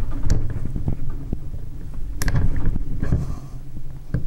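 Handling sounds of thumbs forcing a round wire circlip into a piston's pin-bore groove by hand: low rubbing and scuffing, with a few sharp metallic clicks, one about two seconds in and one near the end.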